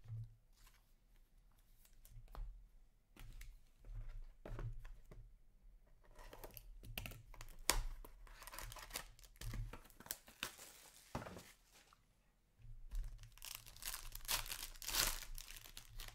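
Upper Deck Stature hockey-card box and foil pack handled and torn open by hand: light taps and clicks of cards at first, then two long stretches of tearing and crinkling of the wrapper, the second near the end.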